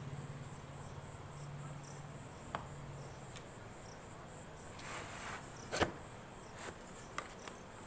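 Crickets chirping steadily in a high, even pulse. A few scattered sharp clicks and a brief rustle cut in, the loudest click about six seconds in.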